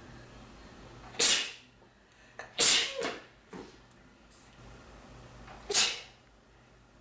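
A man sneezing three times: two loud sneezes about a second and a half apart, then a third about three seconds later.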